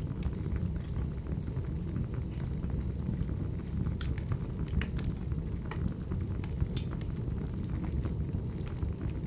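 Wood fire burning: a steady low rumble of flames with scattered, irregular sharp crackles and pops.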